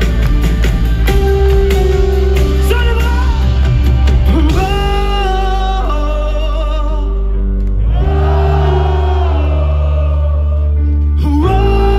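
Live pop band with a male singer, played loud through a big outdoor PA. The drums drop out about four and a half seconds in, leaving held vocal and keyboard notes, and the beat comes back near the end.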